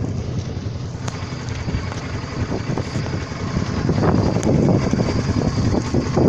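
Yamaha V6 200 outboard motor running steadily at speed, with wind buffeting the microphone. It grows louder about four seconds in.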